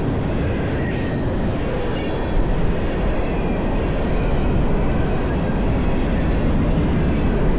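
Freight train passing at speed: a loud, steady rumble of cars rolling by on the rails.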